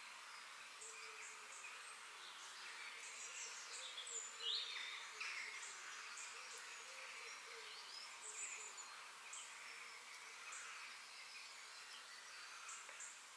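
Forest birds chirping and singing: many short high notes and quick whistles from several birds over a steady background hiss, the loudest a quick sliding whistle about four and a half seconds in.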